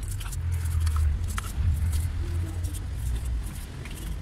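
Small metal hand tools clicking and tapping against engine parts around the timing belt, over a steady low hum.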